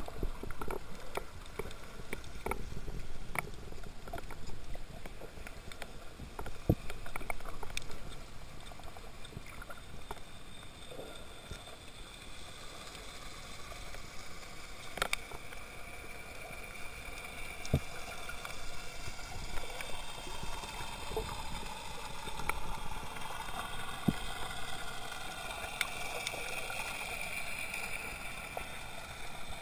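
Underwater sound on a coral reef picked up through a camera's housing: a muffled, steady wash of water noise with scattered sharp clicks, and a wavering hum in the middle range later on.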